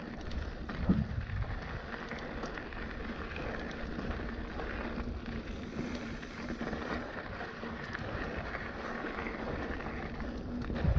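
Mountain bike rolling along a dirt trail: a steady rush of tyre noise on the dirt and wind on the microphone, with a brief louder knock near the end.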